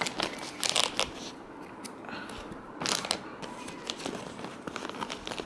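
Packaging being handled: the adapter's cover and its card backing crinkle and rustle in irregular bursts, loudest about three seconds in.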